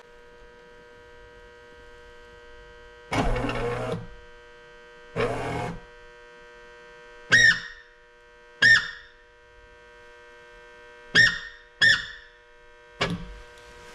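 Steady electronic-sounding music bed with held tones. Over it, twice, a power window's electric motor runs for under a second on 12 volts applied directly, and several sharp clicks ring out briefly.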